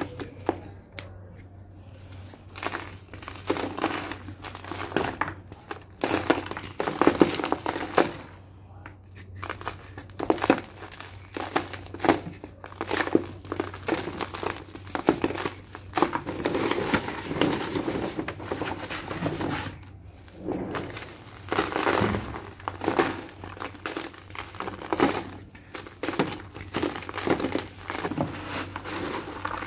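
Lumps of dried sand-and-cement mix crumbled by hand, with grit crunching between the fingers and powder falling onto a sheet and into a tub in irregular bursts.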